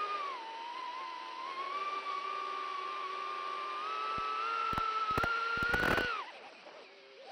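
Cinewhoop quadcopter's HGLRC Flame 1105 brushless motors and small props whining in flight, the pitch wandering with the throttle and rising slightly about five seconds in, with a cluster of sharp crackling clicks. The whine then falls away quickly as the throttle is cut, leaving it much quieter for about a second near the end.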